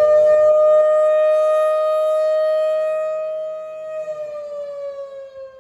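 Fire station call siren sounding to summon volunteer firefighters: a single steady wailing tone held at one pitch, then winding down, falling in pitch and fading from about three and a half seconds in.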